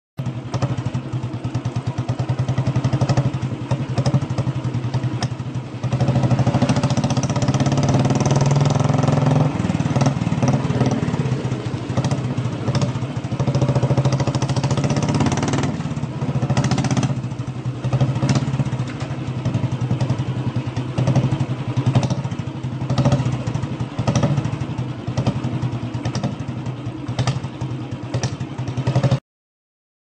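Royal Enfield Bullet 350's single-cylinder engine running with a rapid, even exhaust beat, with louder stretches and short blips of throttle. It cuts off suddenly near the end.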